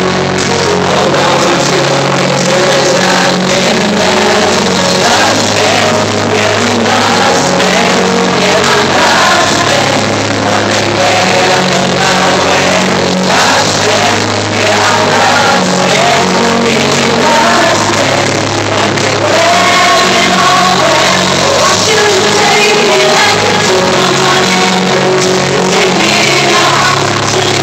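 Live concert music heard from within the audience: a slow song led by a grand piano with a singer's voice carrying the melody, and shouts from the crowd over it.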